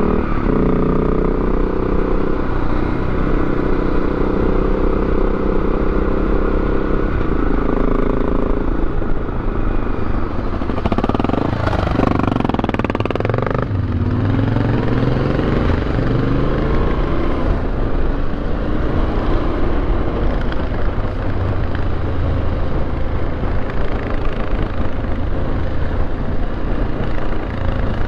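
Yamaha Ténéré 700 parallel-twin engine running while riding, with wind noise over the camera. The engine note rises and falls with changes of speed about halfway through.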